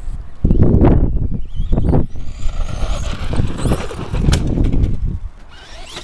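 Brushless electric motor of a radio-controlled monster truck whining as it revs, rising in pitch several times over about two seconds in the middle. A loud rumble of wind and handling on the microphone lies underneath and is the loudest thing.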